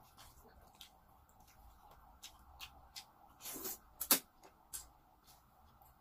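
Eating sounds: scattered wet mouth clicks from chewing, and a short slurp of creamy pasta noodles a little past halfway, followed at once by a sharp click.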